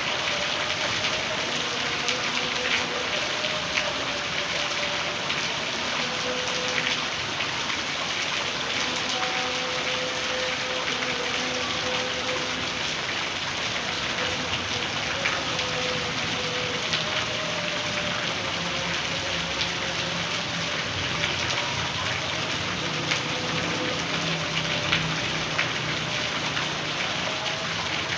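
Heavy rain falling steadily, with a faint wavering tone held in the background.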